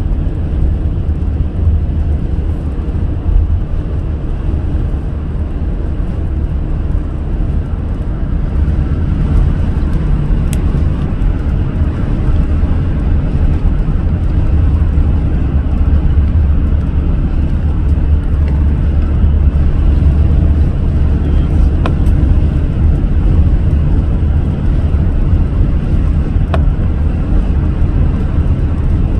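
Car driving on an expressway: a steady low rumble of road and engine noise, with a few faint ticks.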